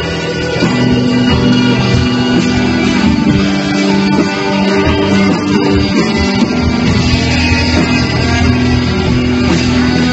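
Live rock band playing: electric guitars, bass and drum kit, with some singing.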